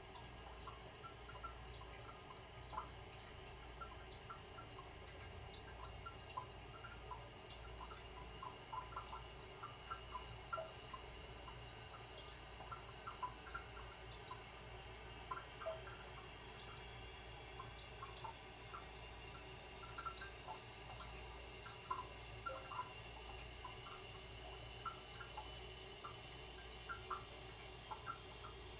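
Toilet after a flush, faint: irregular small drips and plinks of water falling into the bowl or cistern over a low steady hiss of the tank refilling.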